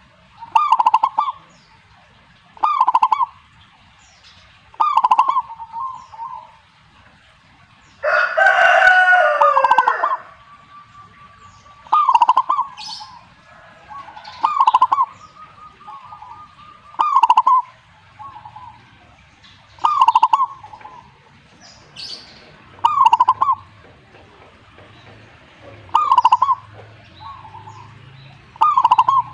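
Zebra dove (perkutut) cooing: short calls repeated about every two and a half seconds. A louder crow about two seconds long, like a rooster's, comes once about eight seconds in.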